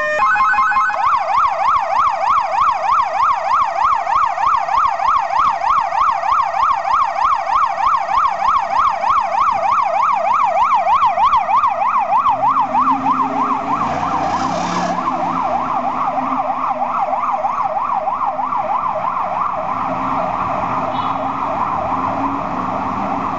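Fire truck's electronic siren sounding a fast yelp, a rapid up-and-down wail nearly four times a second. About halfway through it turns rougher and a little quieter as the truck moves off, with engine and traffic noise underneath.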